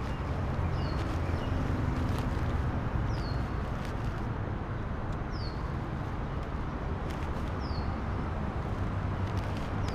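A bird repeating a short, high, falling call about every two seconds, five times, over a steady low rumble of road traffic, with faint crinkles of a paper food wrapper being handled.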